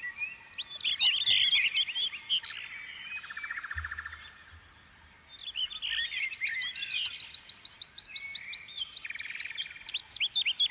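Several small songbirds chirping and singing, with short buzzy trills and a fast run of repeated rising notes midway. Near the middle the birdsong fades almost to quiet, just after a brief low thud, and then picks up again.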